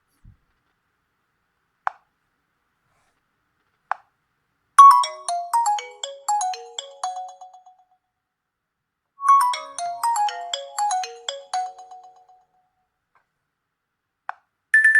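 Nokia G20 ringtone playing: a quick descending run of short, bell-like notes that each fade fast, played twice about four seconds apart. Two short single blips come before it, and near the end another blip and the first notes of the next, higher ringtone.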